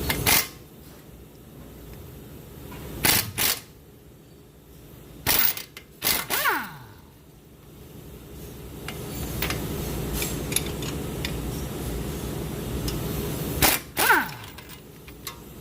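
Impact wrench on the strut-to-knuckle nut and bolt, fired in short bursts: a pair about 3 s in, another around 5 to 6 s, and a last pair near 14 s. Some bursts end in a falling whine as the tool winds down. A steady low hum runs underneath.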